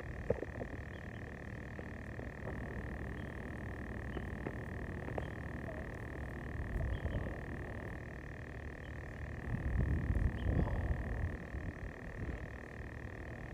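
Frogs calling in a steady outdoor chorus, heard as a continuous high-pitched trill, with low rumbling and rustling from handling or movement that swells briefly about ten seconds in.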